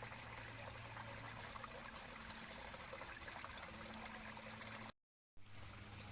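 Small stream trickling steadily. The sound cuts out completely for about half a second about five seconds in.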